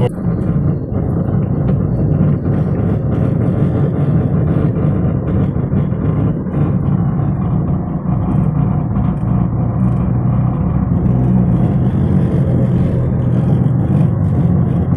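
Car driving at a steady speed: continuous low engine and road noise.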